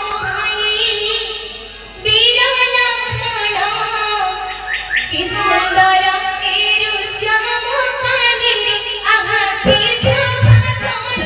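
A high voice singing a drawn-out melodic verse over keyboard accompaniment, as in a sung Odia folk-theatre scene; a low drum beat comes in about ten seconds in.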